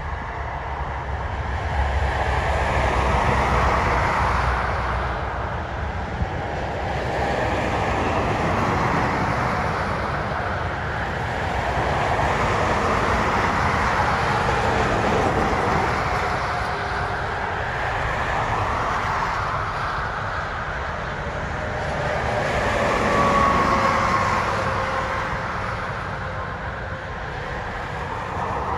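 Interstate traffic going by, cars and trucks swelling and fading every few seconds over a low steady rumble, one passing late on with a falling tyre whine.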